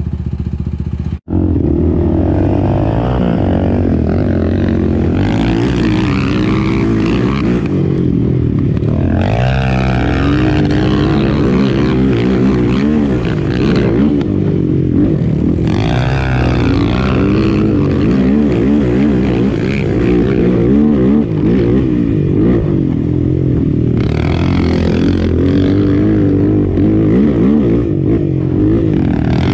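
Sport ATV engine running under load on a trail ride, its pitch rising and falling as the throttle is worked. The sound cuts out for an instant about a second in.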